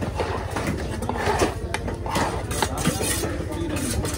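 A knife working through a large tuna on a wooden chopping block: short scrapes and taps of the blade as the flesh is cut and the chunk is shifted on the block. Voices can be heard with it.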